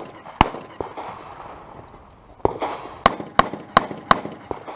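Pistol shots during a timed string of fire: one shot about half a second in, then, after a pause of nearly two seconds, a quick string of five shots about a third of a second apart. A couple of fainter pops come between them.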